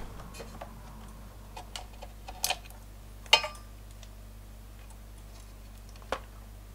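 Scattered small clicks and taps from multimeter test probes and clip leads being handled on the amplifier chassis, the loudest about two and a half and three and a half seconds in, over a low steady hum.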